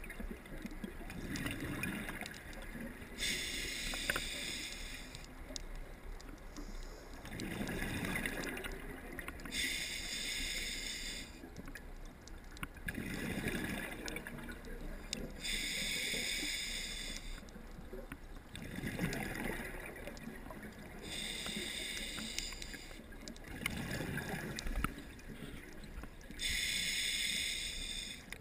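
Scuba diver breathing through a regulator underwater: about five breaths, each a hiss of about a second and a half on the inhale, alternating with a gurgle of exhaled bubbles, repeating every five to six seconds.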